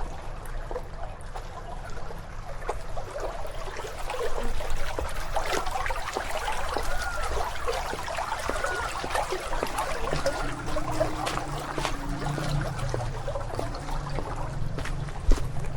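Water trickling and gurgling, as in a small stream or water channel, with a few short high chirps. A low rumble comes in about two-thirds of the way through.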